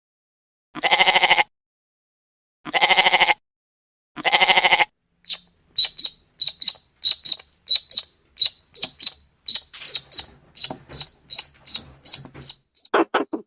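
Bleating, three calls of about a second each, followed by a long run of short high peeps, about three a second, and the start of another bleat near the end.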